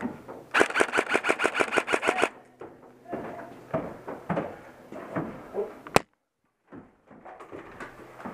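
Airsoft rifle firing one short burst on full auto, about ten shots a second for under two seconds. A single sharp click comes about six seconds in.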